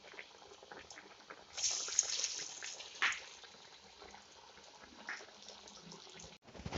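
Parippu vada (chana dal fritters) deep-frying in hot oil: a steady crackling sizzle with small pops, swelling into a louder hiss about one and a half seconds in before settling back down.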